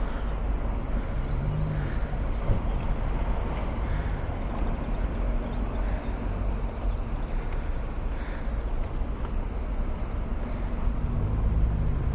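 Steady outdoor noise with a low rumble of wind buffeting the microphone.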